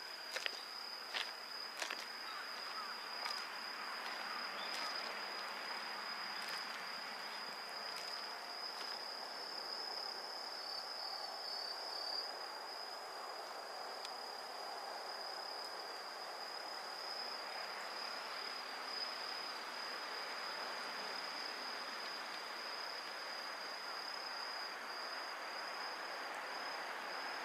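Crickets and other insects singing steadily: one continuous high trill over a softer insect haze. A few sharp clicks come in the first few seconds.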